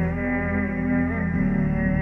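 Background music of slow, sustained low tones, shifting to a new chord about one and a half seconds in.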